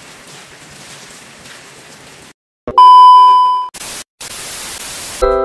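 TV test-pattern transition effect: a loud steady 1 kHz test-tone beep lasting about a second, followed by about a second and a half of TV static hiss with a brief break in it. Before it, a faint steady hiss of rain. A chiming jingle starts right at the end.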